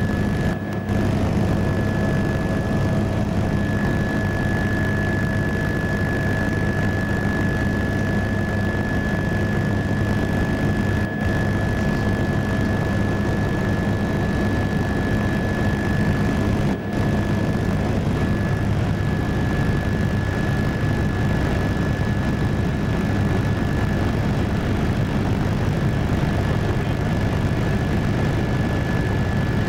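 Helicopter cabin noise in flight: a steady low drone of rotor and engine with a high, steady whine over it.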